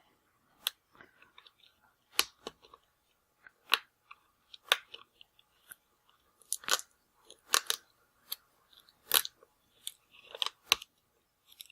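Adhesive tape being pulled up off a laptop LCD panel's edge connector: about a dozen short, irregular crackles and clicks.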